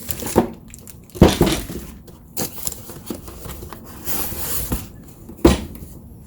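Boxed tool parts and packaging being handled by hand: a few sharp knocks as cardboard and hard items are picked up and set down, with paper or plastic rustling a little after the middle.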